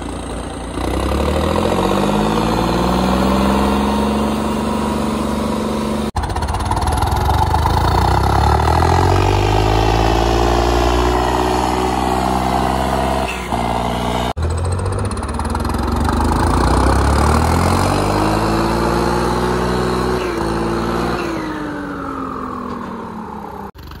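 Diesel farm tractor engines revving up under throttle as the tractors pull away: each time the engine note climbs and then holds steady, in three stretches broken by sudden cuts, the last one dropping back near the end.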